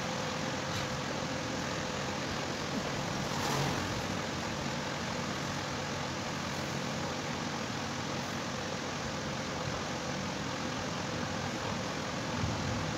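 Steady, even background noise with a faint constant hum, and a brief swell about three and a half seconds in.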